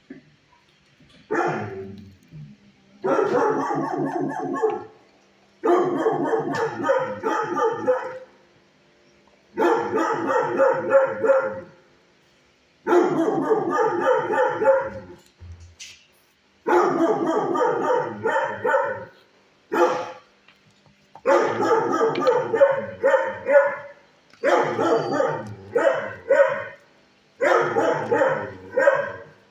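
Shelter dogs barking in the kennels: about nine bouts of rapid, repeated barking, each a couple of seconds long, with short pauses between them.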